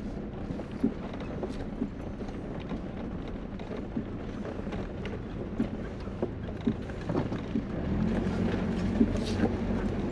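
Road noise inside a moving vehicle: a steady low rumble with scattered small rattles and knocks. About eight seconds in, the engine note gets louder and holds steady as the vehicle speeds up.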